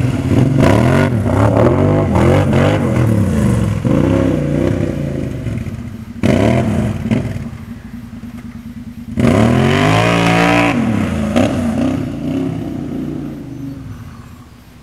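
Kawasaki Brute Force 750 ATV's V-twin engine through a Muzzy aftermarket exhaust, revved hard in repeated bursts, its pitch rising and falling under load in water and mud. Three main bursts of throttle, the last about two-thirds of the way in, then the engine fades away near the end.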